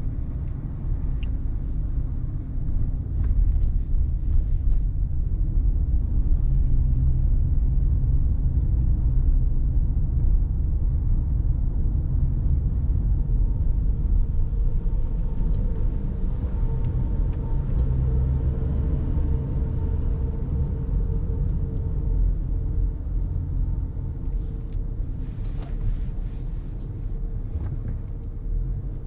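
A car driving: steady low road and engine rumble, with a faint steady hum joining in about halfway through.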